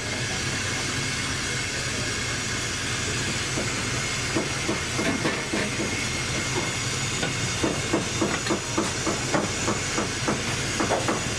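Steady cooking hiss at a street food stall, with a run of quick knocks and clatters, a few a second, from about four seconds in.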